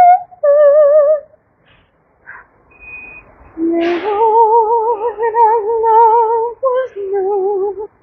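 A voice singing wordless held notes with a wide, regular vibrato, picked up by a headphone microphone in a small echoing shelter. A short phrase ends about a second in, and after a pause a longer phrase of sustained notes begins with a breath and runs until near the end.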